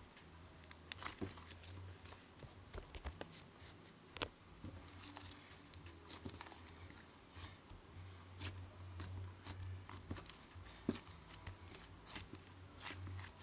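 Irregular small clicks and taps from hands handling slime or fidget toys close to the microphone, over a low hum that comes and goes.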